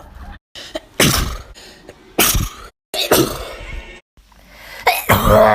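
People sneezing one after another in short clips cut together: about four sharp sneezes, with abrupt cuts between them.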